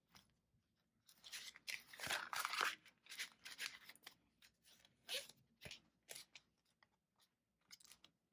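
Crinkling and rustling of clear plastic budget-binder cash pouches and paper bills being handled, busiest between about one and three seconds in, then scattered softer crackles.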